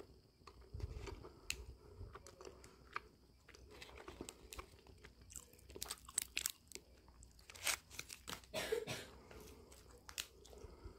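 Close-up chewing of a yakgwa, a Korean deep-fried honey cookie with a flaky, crispy crust, heard as many short crunches. The crunching is densest and loudest in the second half.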